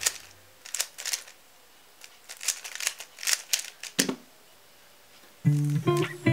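3x3 speed cube being turned fast: a quick run of plastic clicks and clacks from the turning layers, ending about four seconds in with one thump as a hand comes down on the phone timer to stop the solve. Guitar music comes in about a second and a half later.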